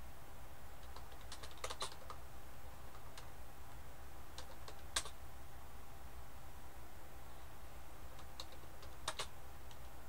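Computer keyboard typing: irregular keystrokes, a few at a time, over a steady low hum.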